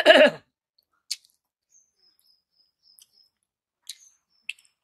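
A person eating rice and dal with her fingers: a short loud vocal sound right at the start, then faint, scattered mouth clicks and smacks of chewing, with a few faint high squeaks.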